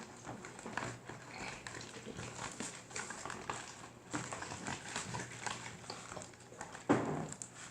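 Gluey, half-formed slime being stirred in a bowl with borax activator: a busy run of irregular sticky squelches and small clicks. A louder knock comes near the end.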